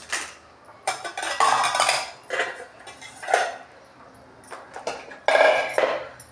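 Stainless steel pots, containers and utensils clattering and clinking as they are shifted about on a kitchen counter, in a string of short clanks about a second apart, the longest and loudest near the end.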